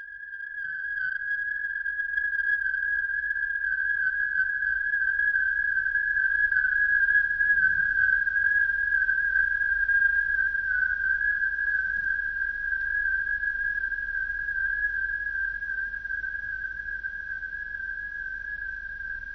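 A single high, steady whistle-like tone, held unbroken with a slight waver, with fainter overtones above it and a faint low hum underneath.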